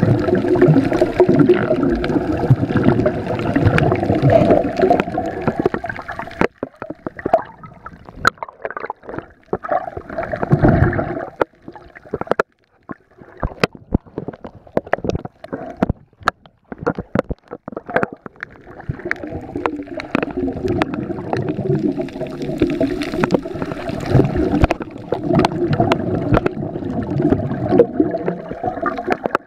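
Water gurgling and churning around a camera held underwater. The dense water noise breaks off about six seconds in into a quieter stretch of scattered sharp clicks and crackles, then comes back from about nineteen seconds on.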